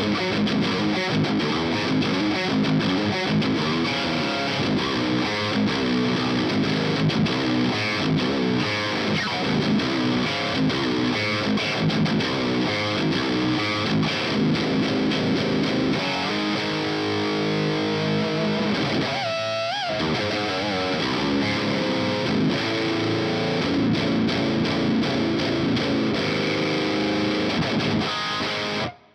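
High-gain distorted seven-string electric guitar in drop G sharp, riffing through a modified Marshall JCM 900 SL-X 50-watt tube amp with a Fortin Blade boost in front, which tightens the low end into a percussive attack. There is a brief pitch bend about two thirds of the way through, and the riffing cuts off abruptly near the end.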